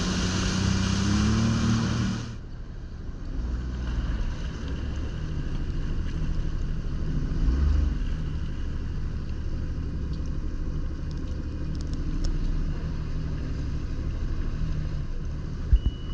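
Jet ski engine running at speed amid rushing water and wind. About two seconds in it drops suddenly to a quieter, steady low engine rumble at slow speed.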